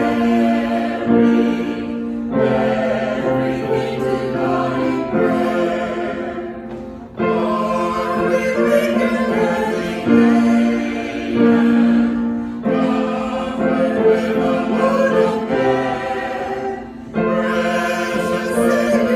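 A choir singing a sacred piece in held chords. The phrases last a few seconds each, with short breaks for breath between them.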